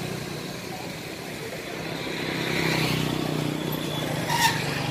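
Honda Future X FI's single-cylinder four-stroke engine idling steadily and quietly, swelling slightly in the middle, with a short click near the end.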